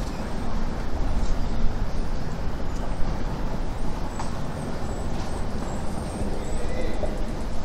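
Steady low outdoor rumble of background noise with no speech, and a few faint, short, high chirps.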